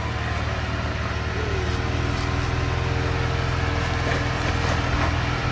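A Jeep Wrangler Rubicon's engine runs steadily at low revs as it crawls slowly over boulders, a deep drone that sounds like a school bus.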